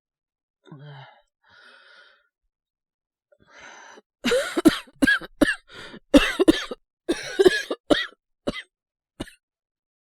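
A man's acted coughing fit, voicing someone sick with a cold: a short low groan and a couple of breaths, then from about four seconds in a long run of coughs in quick clusters, trailing off into two single coughs near the end.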